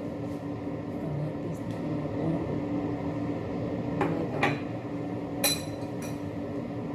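A few short knocks and clinks of tableware: two dull knocks, then a brighter ringing clink about two thirds of the way through, over a steady low hum.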